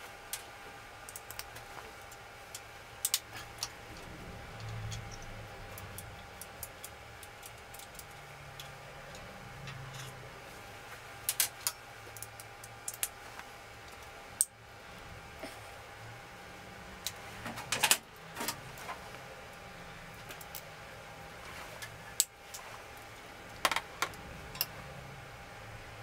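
Irregular small metallic clicks and clinks of a hand tool working the screws of a BMW R100GS timing chain cover, with a thicker cluster of clicks about two-thirds of the way through.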